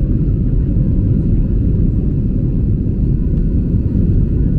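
Steady low rumble of an airliner's jet engines and airflow, heard inside the passenger cabin in flight.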